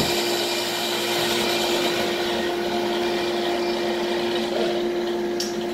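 Table saw running unloaded with a steady, unchanging hum and whine just after finishing a rip cut through a cedar slab.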